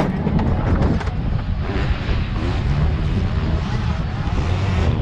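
Wind buffeting a helmet-mounted microphone, with motorcycle engines running in the background.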